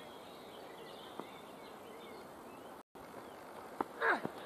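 Quiet open-air ambience with faint bird chirps. Near the end there is a brief call that slides downward in pitch.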